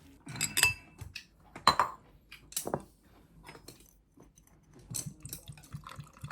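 Dishes and metal cutlery being handled and set down: an irregular run of sharp clinks and clatters, the loudest in the first two seconds.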